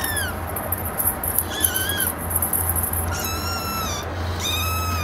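Young kitten mewing four times in high, thin cries, the third the longest, over background music.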